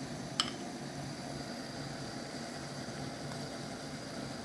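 A steady low hum in the kitchen under a pan of chickpea curry at the boil, with one sharp click about half a second in as tomato pieces are dropped into the pan.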